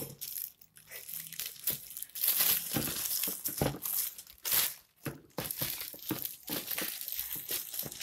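Thin clear plastic bag crinkling and rustling in irregular bursts as hands pull it off plastic containers, with a brief pause about five seconds in.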